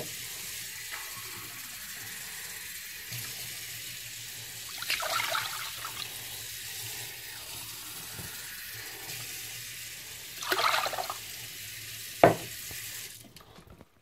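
Water running from a kitchen tap, a steady hiss that swells twice and stops about a second before the end, with a sharp knock shortly before it stops. It is water being added to vinegar in a pot for descaling.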